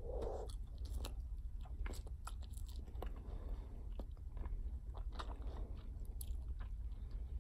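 Bubble gum being chewed with the mouth closed: irregular wet clicks and smacks of the gum between teeth and lips, following a short soft burst at the start as the big bubble collapses.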